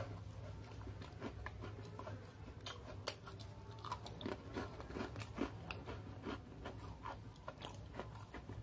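A person chewing a peanut butter and chocolate Oreo cookie, with small irregular crunches and clicks over a steady low hum.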